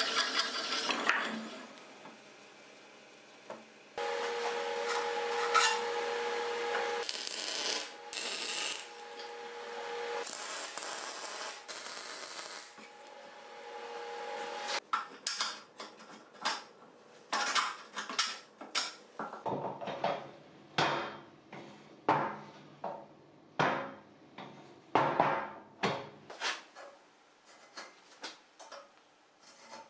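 A hand file scraping over a welded corner of a steel square-tube frame, in quick back-and-forth strokes about two a second through the second half. Before that, a drill bit cutting steel in a machine vice at the start, then a steady machine hum with noisy bursts in the middle.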